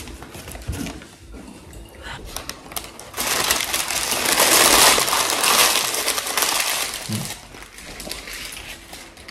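Paper burger wrapper crumpled up by hand: a dense crackling rustle for about four seconds in the middle, with a few light clicks before it.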